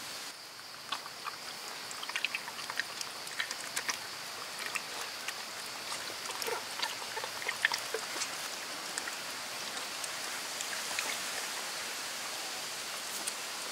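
Steady water-like trickling with many small clicks and a few short chirps scattered through it.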